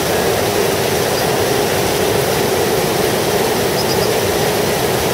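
Steady rush of river water pouring down a stepped concrete cascade, an even unbroken roar of white water.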